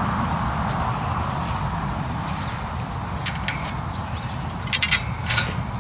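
Steady low rumble of wind on the microphone. About three seconds in come a few light metallic clicks, then a quick cluster near the end, as a metal bracing bar of the tower is handled.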